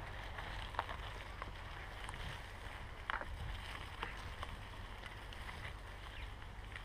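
Scott Scale 970 mountain bike rolling along a forest singletrack: a steady low rumble of the ride, with a few sharp clicks and knocks as the tyres and frame jolt over bumps in the trail.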